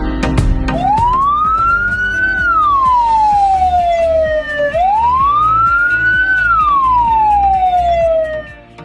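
Electronic ambulance siren in wail mode: one tone rises and then falls slowly, twice, each cycle about four seconds, over background music.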